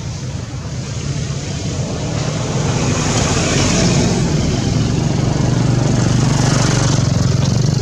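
Loud, steady rumbling noise with a low hum under it, growing louder over the first three seconds or so and then holding.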